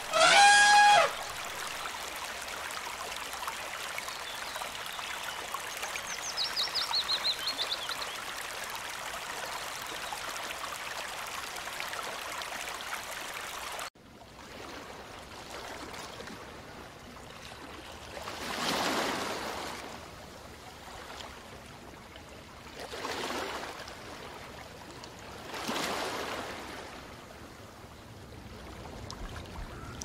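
Steady running water, opening with a loud pitched call about a second long and with a short run of high bird chirps a few seconds in. About halfway through it cuts to quieter water ambience, with three soft swells of water washing.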